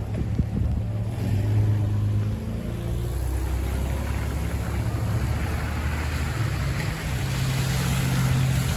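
Low hum of a motor vehicle's engine on the street, under a rushing noise of wind that grows louder toward the end.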